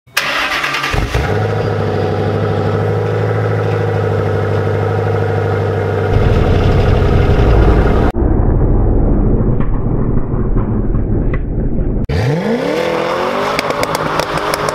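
Ford Mustang doing a burnout: the engine is held at high revs while the rear tyres spin, heard in a few cut-together clips. Near the end the revs climb sharply.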